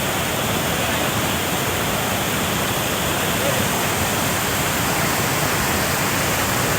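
Stream water rushing: a steady, even rush of flowing water.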